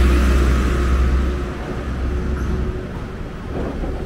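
Engine rumble of a truck passing close by, loudest at the start and fading away over the first few seconds, leaving general street traffic noise.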